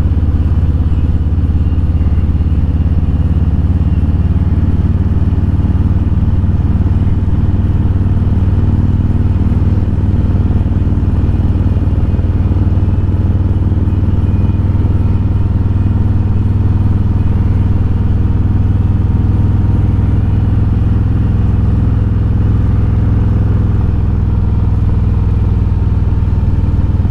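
Harley-Davidson Road Glide's V-twin engine running steadily under load as the motorcycle rides uphill, with a strong low engine note.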